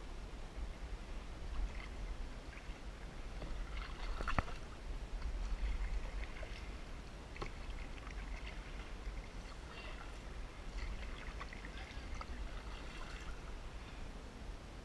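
Kayak paddle strokes dipping into calm water on alternate sides, with small splashes and drips, over a steady low rumble. A sharp knock comes about four seconds in.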